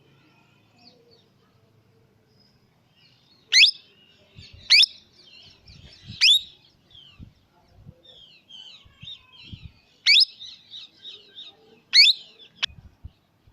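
Baby parrot calling: five loud, sharp shrieks that sweep upward in pitch, the first about three and a half seconds in and the rest spread a second or two apart, with softer chattering calls between them.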